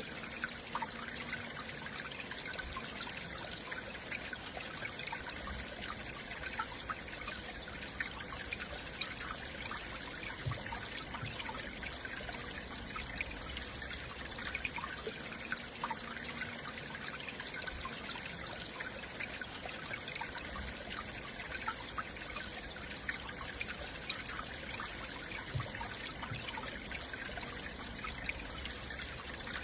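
Stream water flowing and trickling steadily, with many small splashes and gurgles.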